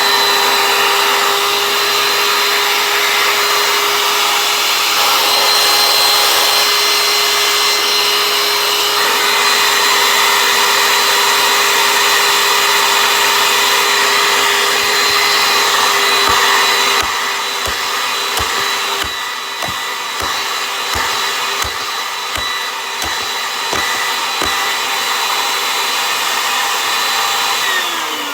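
Oreck bagged vacuum cleaner running steadily with a whining motor. From about halfway a string of regular low knocks sets in, and near the end the motor is switched off and winds down, its pitch falling.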